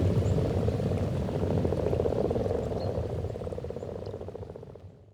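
A breeding chorus of common frogs at the spawning pond: many overlapping, rapidly pulsed croaks. The chorus fades out steadily toward the end.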